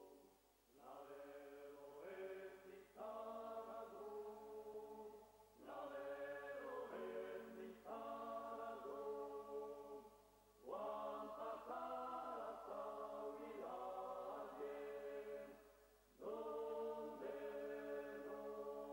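Background music of vocal chant: voices sing long held phrases, each a few seconds long, with short breaks between them.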